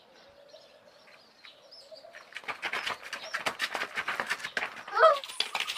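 Pigeons cooing faintly, then a rapid clatter of sharp clicks building up over about three seconds, with a short rising call near the end.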